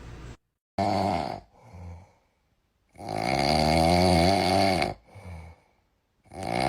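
A sleeping cat snoring: slow, repeated snoring breaths, a short one about a second in and longer ones later, each followed by a brief softer breath.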